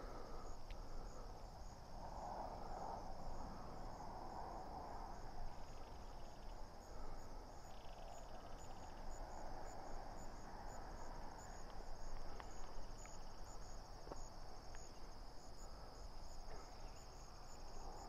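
Faint insect chorus, crickets calling: a steady high trill with regular chirps over it.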